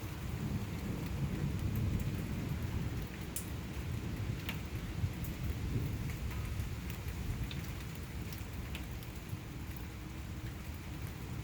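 Steady rain of a thunderstorm, with scattered sharp drips hitting nearby surfaces and a low rumble of thunder underneath.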